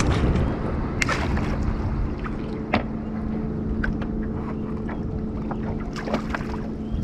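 Wind and water noise around a fishing kayak, with a steady low hum under it and several sharp clicks and knocks as a fishing rod, reel and landing net are handled.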